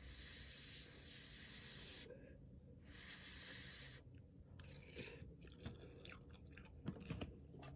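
Faint chewing of instant ramen noodles close to the microphone: two soft hissing stretches in the first few seconds, then scattered small wet mouth clicks.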